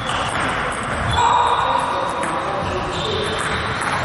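Echoing sports-hall ambience during table tennis play: ping-pong balls clicking on tables and bats from neighbouring tables, with a few brief held high squeaks over it.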